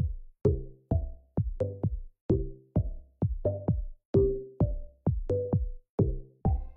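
Background electronic music: a steady drum-machine beat of punchy kick hits about twice a second, with short synth notes between them.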